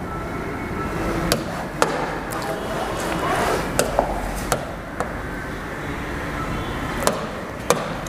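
Several sharp, irregularly spaced taps and clicks of a hand or stylus on an interactive touchscreen as pen colours are picked from the on-screen palette, over steady room noise.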